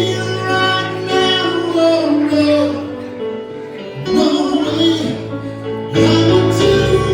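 A live band playing a song: guitar and bass under a sung vocal line, with a short lull in the singing about four seconds in before the band comes back in full.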